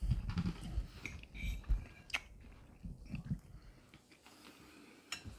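A person chewing a mouthful of chow mein, with soft bumps in the first couple of seconds and a sharp click about two seconds in.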